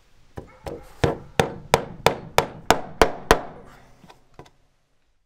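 A hammer striking a hand-forged steel hook to drive its point into a wooden board: a run of about ten sharp blows, roughly three a second, that grow harder at first, then two light taps near the end.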